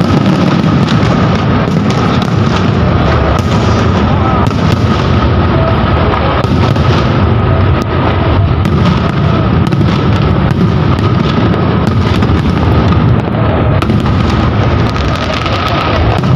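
Aerial fireworks display: many shells bursting overhead in a dense, continuous barrage of booms and bangs with no pause.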